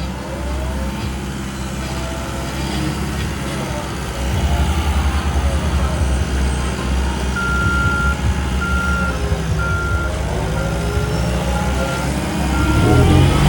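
Heavy diesel road-paving machinery running, its engine rumble growing louder about a third of the way in. From about halfway through, a reversing alarm beeps steadily about once a second.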